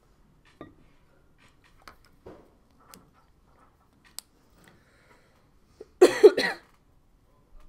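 A person coughs twice in quick succession about six seconds in, loud against faint scattered ticks and rustles before it.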